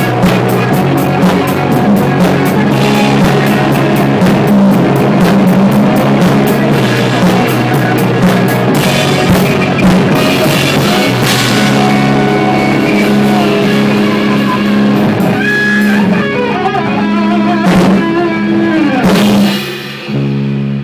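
A rock band playing live on electric guitars and a drum kit, with steady cymbal strikes. Near the end the drumming thins out and the guitars hold ringing notes with a sliding pitch. Then the song stops just before the end.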